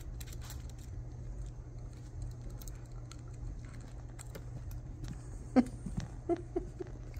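A young squirrel's small clicks and light ticks at a feeding syringe, then its claws skittering on a wooden floor as it scrambles away, with a sharp knock about five and a half seconds in and a few softer knocks after. A steady low hum runs underneath.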